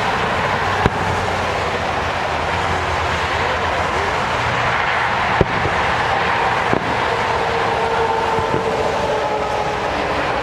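Fireworks shells bursting: a few short, sharp cracks, about three, rising only a little above a steady rushing background noise.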